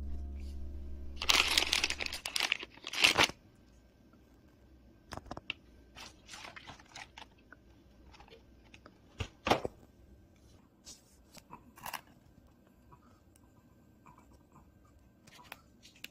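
Plastic snack wrappers and cardboard packaging rustling and crinkling as a box of chocolate snacks is handled. A loud stretch of crinkling lasts about two seconds, starting about a second in, followed by scattered soft rustles and taps.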